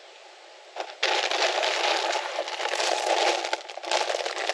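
Plastic air-pillow packing and cardboard crinkling and rustling as a box is unpacked by hand. It starts about a second in and goes on as a dense, crackly rustle.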